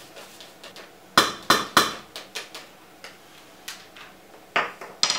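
Kitchen handling sounds at a stainless steel pot: three quick sharp knocks about a second in, a few softer clicks, then two more knocks near the end.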